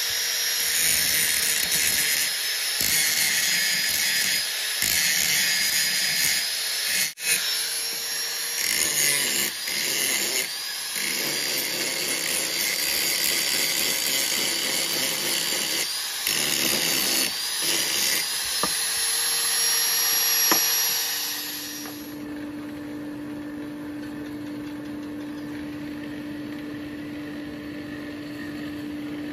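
Electric angle grinder with an abrasive disc grinding a forged steel axe head, its high whine dipping and rising as the disc bites into the metal. About three quarters of the way through the grinding stops and a steady low motor hum takes over, the forge's air blower.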